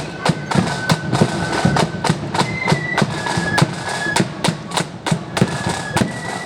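Marching flute band playing: flutes carry a high melody over a steady, quick beat of snare and bass drums.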